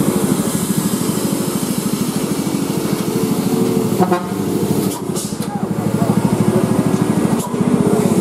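Heavy diesel truck engine pulling uphill close by, a rapid steady throbbing rumble. A brief horn toot sounds about four seconds in.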